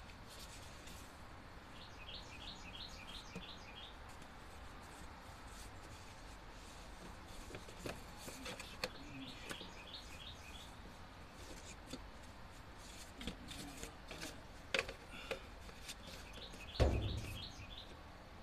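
A bird sings a quick trill of short chirps three times, over scattered knocks and rustles from cardboard and hands working in a truck's engine bay. A heavier thump comes near the end.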